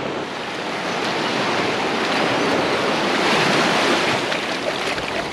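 Small surf breaking and washing in over the shallows at the water's edge, swelling louder about halfway through and then easing.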